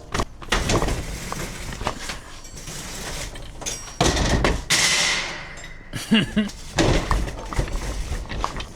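Hard objects clattering and knocking as things are handled and moved around, with a louder rushing noise lasting about a second and a half near the middle.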